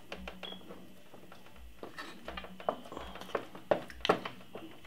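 Wooden spoon knocking and scraping in a metal roasting tin while spooning up pan juices: a run of light, irregular clicks and knocks, loudest between about three and four seconds in.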